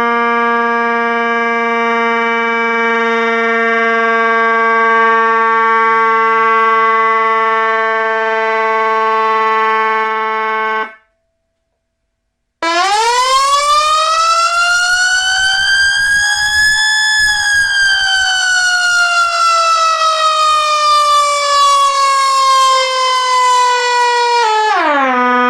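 Whelen X-Ecutor mechanical siren simulator sounding through its siren speaker: a steady tone held at one pitch for about ten seconds cuts off abruptly. After a short gap the simulated mechanical siren winds up over about four seconds, peaks, coasts slowly down, and then drops off sharply near the end.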